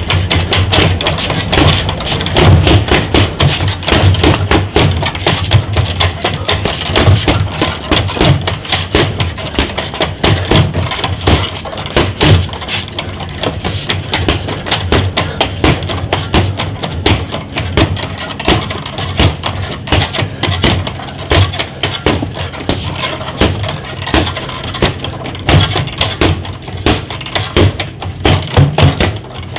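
Boxing gloves striking a Ringside Cobra Reflex free-standing reflex bag in quick flurries, a rapid run of taps and thuds as the spring-mounted ball rebounds, over background music.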